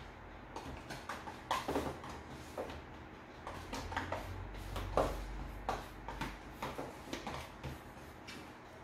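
Fingers pressing and patting crushed graham cracker crumbs flat into a small plastic container, giving soft, irregular taps and scratchy rustles against the plastic.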